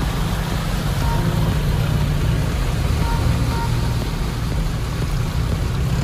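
Four-wheel-drive vehicle running, a steady low engine and road rumble.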